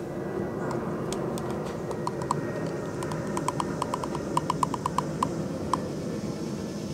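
Paintbrush clicking against a small plastic paint cup while paint is dipped and stirred: a run of quick, light, irregular clicks in short clusters, over a steady low background rumble.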